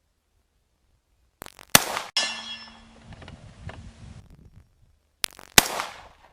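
Two rifle shots about four seconds apart. The first is followed by the ringing clang of a steel target being hit, which dies away over about two seconds.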